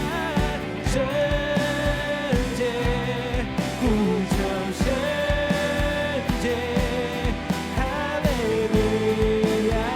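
A worship song's band backing with a steady drum beat, and a keyboard flute patch over it playing a melody line of long held notes joined by short runs.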